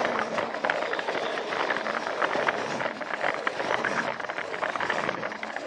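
Battery-powered Plarail toy train running along plastic track, its small motor and gears whirring steadily, with frequent sharp clicks from the wheels and couplings over the rail joints.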